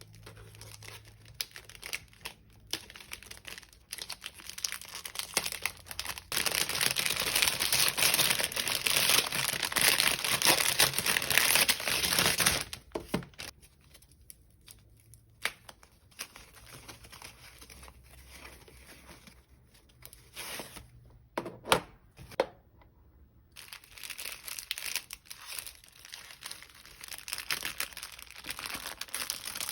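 Packaging being handled and torn open: crinkling and rustling with scattered crackles, and a loud stretch of continuous tearing and crinkling from about six to twelve seconds in.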